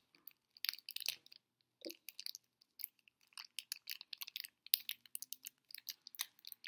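Plastic packaging of a Shopkins blind basket crinkling and crackling as it is handled and torn open, in many quick, irregular crackles.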